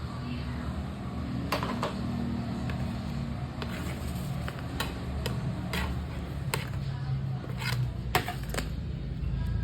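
Scattered light clicks and taps of objects being handled, about a dozen spread irregularly, over a steady low hum.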